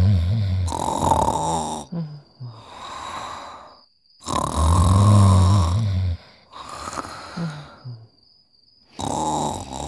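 Cartoon snoring from two sleeping characters: a loud, low, rattling snore followed by a breathier, hissing breath, the cycle repeating about every four and a half seconds.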